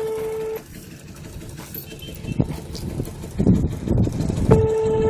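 Ringback tone from a mobile phone's speaker: a steady beep about a second long at the start and again near the end, meaning the called phone is ringing and not yet answered. Between the beeps, street and vehicle noise rises in the background.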